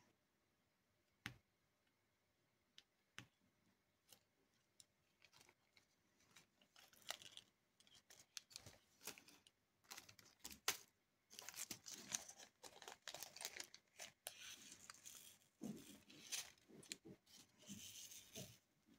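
Faint diamond painting work: a few separate clicks of a drill pen setting resin drills onto the canvas, then, from about a third of the way in, dense runs of clicking and rattling as the small plastic drills are worked in the plastic tray.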